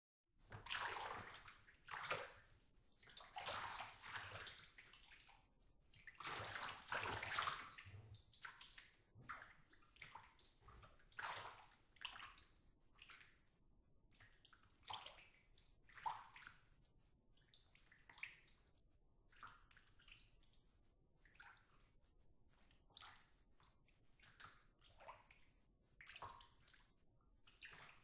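Bath water sloshing and splashing as someone moves in a filled bathtub. There are larger, longer splashes through the first eight seconds or so, then smaller separate splashes and drips every second or two.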